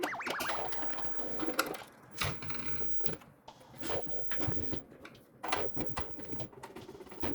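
Irregular light clicks and knocks of objects being handled, a dozen or so spread unevenly through the stretch.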